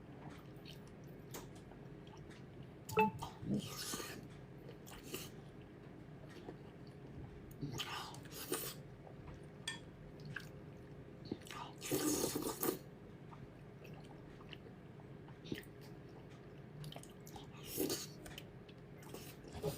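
Close-up eating sounds: intermittent chewing, bites and wet mouth smacks at irregular intervals, with a longer noisier one about twelve seconds in.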